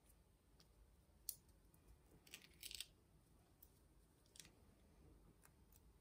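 Near silence with a few faint clicks and a brief papery crackle about two and a half seconds in, from handling card stock and peeling foam adhesive pads off their backing sheet.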